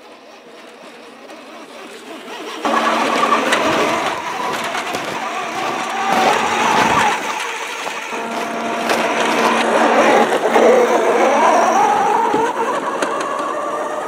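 A 1/6-scale remote-control model truck driving, with a steady motor drone that swings up and down in pitch around ten seconds in. It starts faintly and jumps much louder about two and a half seconds in.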